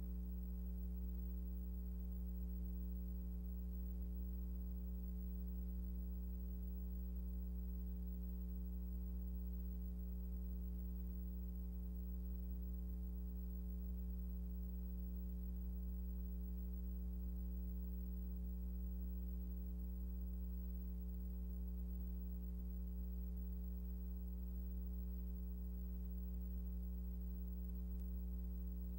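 Steady low electrical hum with a stack of overtones, unchanging throughout, and no other sound.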